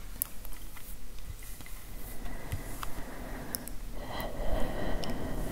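Close-miked ASMR mouth sounds: scattered soft clicks, then about four seconds in a louder breathy hiss with a faint whistle.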